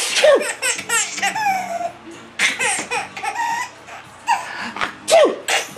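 Young child laughing in several hearty bursts, set off by sneezing.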